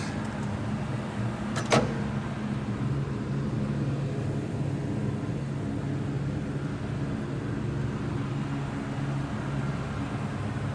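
The 5.0-litre V8 of a 1988 Cadillac Fleetwood Brougham idling steadily, with a single sharp knock nearly two seconds in.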